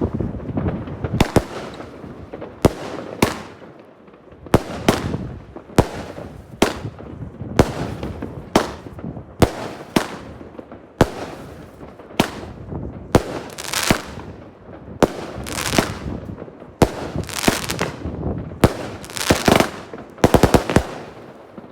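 Small consumer firework battery (cake) firing shot after shot: about thirty sharp bangs, roughly one to two a second at uneven spacing, some in quick pairs.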